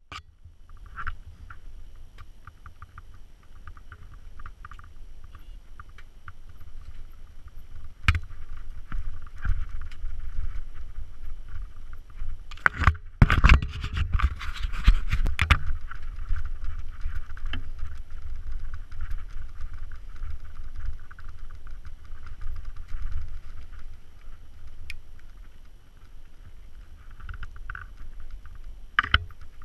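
Wind buffeting the microphone as a steady low rumble, with leaves and brush rustling and scraping. A cluster of loud knocks and scrapes comes about thirteen to fifteen seconds in.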